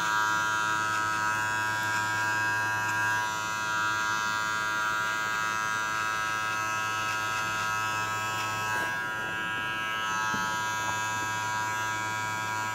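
Electric hair clipper fitted with a number 1 guard, running with a steady buzz while it fades short hair.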